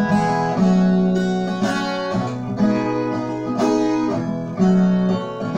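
A viola caipira, the Brazilian ten-string guitar with paired strings, played alone: a melody of plucked single notes, changing about twice a second, over ringing low bass notes.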